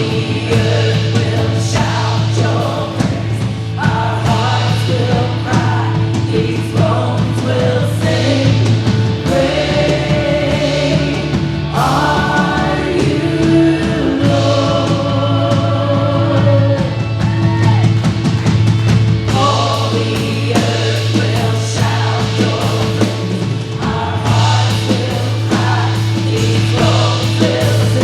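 Worship band and singers performing a praise song, several voices singing over a full band with a steady, sustained bass.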